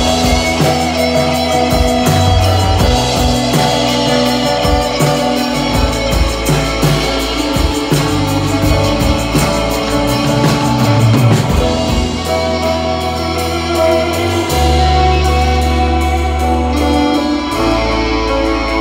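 Live psychedelic rock band playing electric guitars, bass guitar, tambourine and drum kit. About twelve seconds in the drumming thins out, leaving long held bass notes under the guitars.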